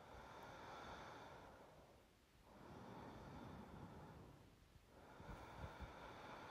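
A woman's slow, faint sleep breathing close to the microphone, about three long breaths, each a soft rise and fall of air.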